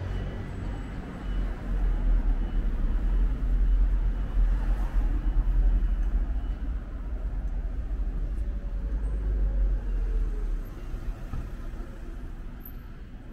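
Street traffic: a low vehicle engine rumble swells for several seconds and dies away about ten seconds in.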